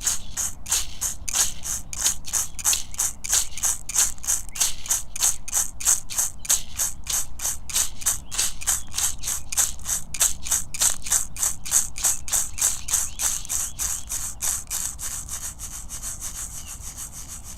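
A hand rattle shaken in a steady rhythm, about four shakes a second, growing quieter near the end.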